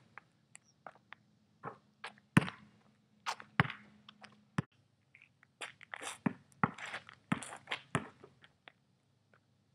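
Basketball dribbled on a paved driveway: irregular sharp bounces, sparse at first and then quicker and denser for a few seconds before the shot.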